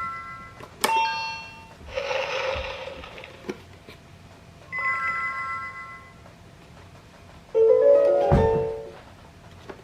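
Electronic talking picture book playing chime and sound-effect tones. There are short held beeps near the start and again about 5 s in, a bright chime just under a second in, and a hissy effect about 2 s in. Near the end comes the loudest part, a quick descending run of notes with a low thump.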